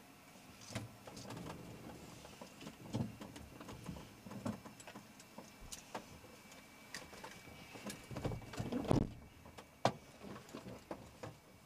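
A run of irregular clicks and knocks, with a cluster of heavier thumps about eight to nine seconds in and a sharp click just after.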